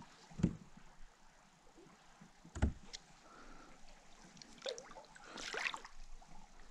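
Two dull knocks against the kayak about two seconds apart, then soft water swishing near the end as a hand lowers a smallmouth bass into the lake to release it.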